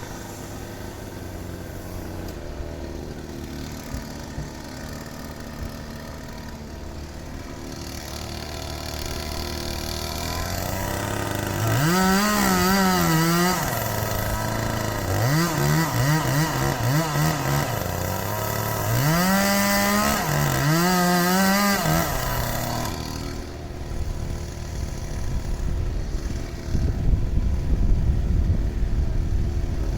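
Small two-stroke engine, a chainsaw, running at idle, then throttled up three times in the middle, its high pitch wavering and dipping as if under cutting load. Rougher, noisier running near the end.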